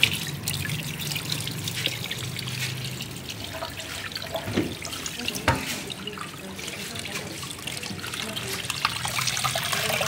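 Tap water running and splashing over a large barracuda in a stainless steel sink as hands rub and rinse it, with small wet clicks and slaps. One sharp knock about five and a half seconds in.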